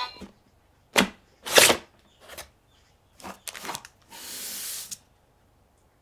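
Handling noises from a boxed plastic toy and its packaging: a few short rustling scrapes, the second the loudest, then a steady slide lasting about a second that stops abruptly.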